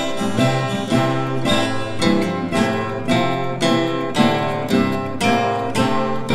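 Lively string band music: acoustic guitars strummed and plucked in a steady, even rhythm.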